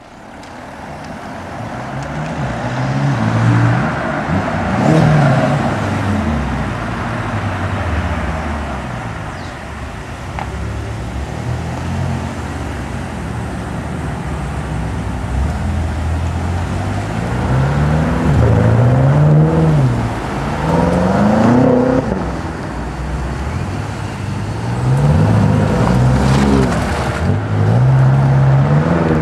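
BMW M5 sedans, each with a 4.4-litre twin-turbo V8, accelerating past one after another. The engine note rises through the gears and drops briefly at each upshift, several times over.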